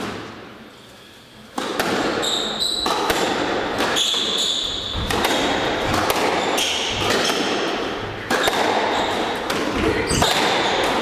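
Squash rally: the ball struck by rackets and knocking off the walls, with shoes squeaking on the court floor, starting about one and a half seconds in after a brief quiet moment.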